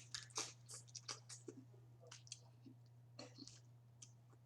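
Faint wet clicks and chewing of someone eating boiled crawfish, about two or three small clicks a second, over a steady low hum.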